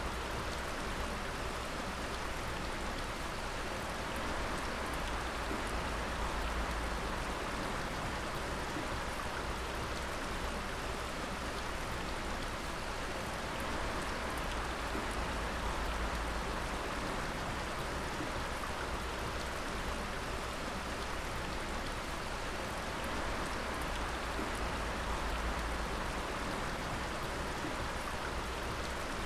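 Water dripping and splashing in a dense, steady patter, with a low rumble underneath.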